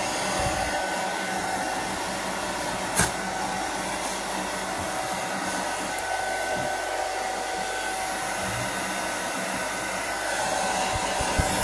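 Handheld hair dryer running steadily while blow-drying a wet dog's coat: an even rush of air with a steady tone over it. One sharp click about three seconds in.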